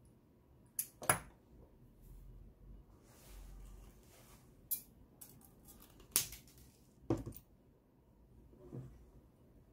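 Sharp metallic clicks and clinks of orthodontic pliers and a thin spring wire being bent and handled, about six separate strikes with faint rustling between them.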